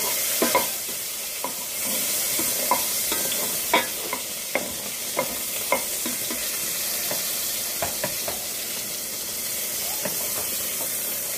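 Sliced sausage frying in a pan with a steady sizzle, while a spoon stirs it, clinking and scraping against the pan at irregular moments.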